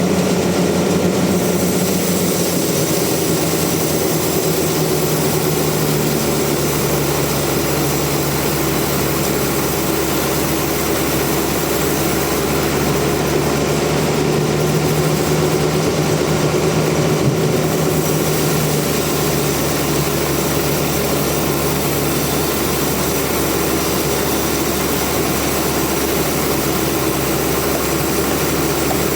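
Sawmill running steadily: a loud, continuous machine hum whose low tone dips slightly in pitch about a second and a half in.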